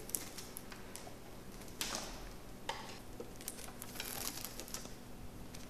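Faint scattered clicks and rustles of plastic spiral wrap tubing being wound around the scooter's handlebar wiring harness, over a low steady hum.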